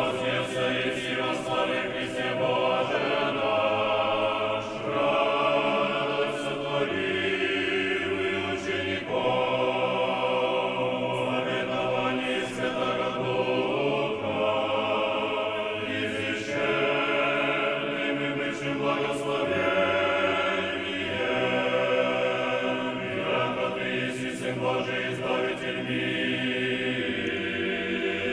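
A choir singing a slow chant in long held chords, with no instruments heard.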